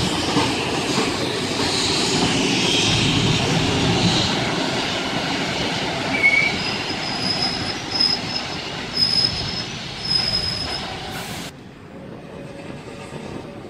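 Vintage passenger carriages rolling past at close range, the wheels rumbling and clattering on the rails, with brief high-pitched wheel squeals. The sound drops away sharply about eleven and a half seconds in as the end of the train passes and moves off.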